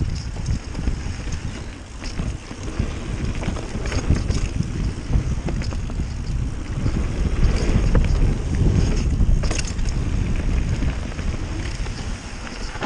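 Wind rushing over the microphone while a mountain bike rides fast down a dirt trail, with a steady low rumble and scattered clicks and rattles from the bike.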